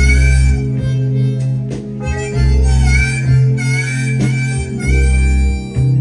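Live band playing an instrumental break: a harmonica solo of held, slightly bending notes over bass and guitar.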